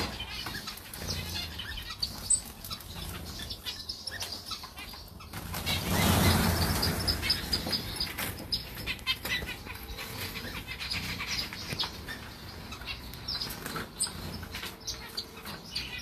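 A flock of captive finches, mostly zebra finches, chirping and calling constantly in short high notes. About six seconds in there is a louder rush of wing flapping lasting a second or two, as many birds fly up at once.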